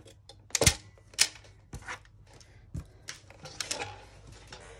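A large Tim Holtz paper trimmer being lifted off a cutting mat and set down, giving a few knocks and clatters, the heaviest about half a second in, with paper rustling and smaller clicks near the end.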